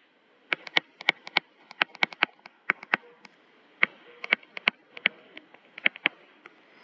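A stylus tip tapping and clicking on a touchscreen during handwriting: an irregular run of sharp ticks, several a second, in little clusters with short pauses between words.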